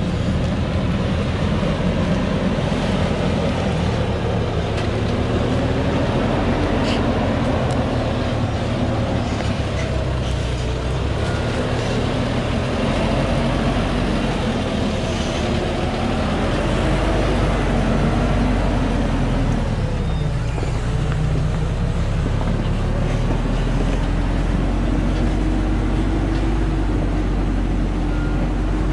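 Diesel engine of a Thaco Foland FC950 4WD truck laden with acacia logs, running under load as it works slowly down a steep rocky track, its engine note rising and falling, dipping about two-thirds of the way through and then holding steadier.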